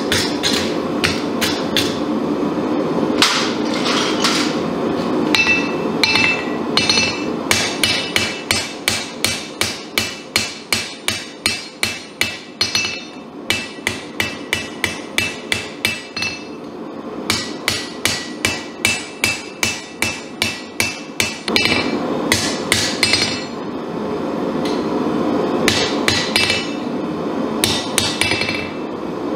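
Hand hammer striking hot damascus steel on an anvil: runs of blows at about three a second with short pauses, some ringing out off the anvil. A steady background noise lies underneath.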